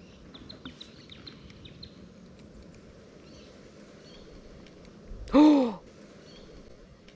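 A quick run of short, high bird chirps in the first two seconds. About five seconds in, a man's brief wordless exclamation, rising then falling in pitch, the loudest sound here.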